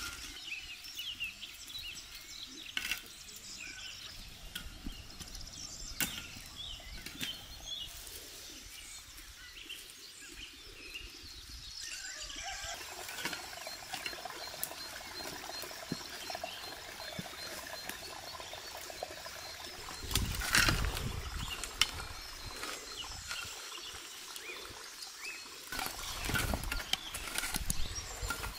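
Small birds chirping and calling throughout, with steel shovel blades scraping and chopping into soil in the later part, the loudest strokes about two-thirds of the way in and near the end.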